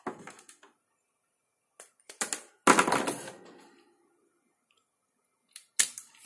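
Sharp snaps and clicks of hand tools cutting and stripping a thin audio cable: side cutters and a self-adjusting wire stripper. One loud clack that rings briefly comes about two and a half seconds in, with a few more quick snaps near the end.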